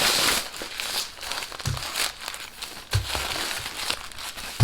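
Wrapping crinkling and crackling in irregular bursts as a handbag is unwrapped from its packaging, with a couple of dull bumps of handling.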